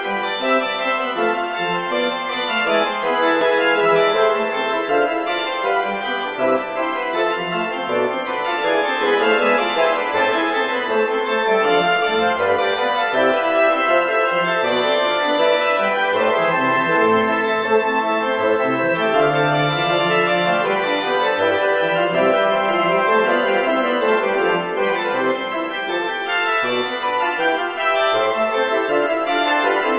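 Organ playing a prelude and fugue for organ and winds, many notes sounding together in a full, unbroken flow.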